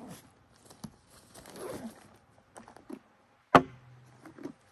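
Gear being handled on a wooden picnic table: bags rustling and small clicks, with one sharp knock about three and a half seconds in.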